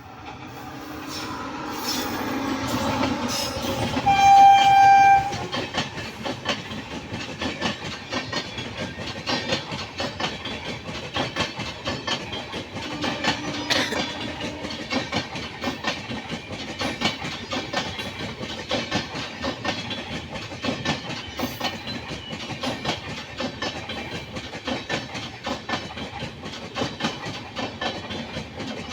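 Indian Railways train approaching, sounding its horn once in a single blast about four seconds in, then its coaches passing with a long, steady clickety-clack of wheels over rail joints.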